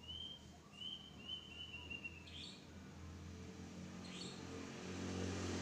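Faint bird chirping: a run of short repeated high notes in the first two seconds, over a low steady hum.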